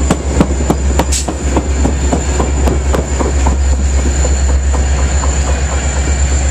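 Diesel-hauled Metra bilevel commuter train moving past along the platform, heard close by: a steady heavy low rumble with a rapid run of wheel clicks over the rail joints, about three or four a second, and a thin high whine running throughout.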